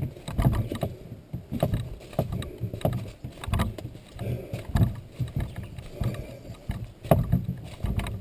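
Irregular low thumps with clicks and rustles, about one to two a second: walking footsteps carried up into a skin-on-frame canoe borne on the walker's shoulders, its wooden frame and skin jostling with each step.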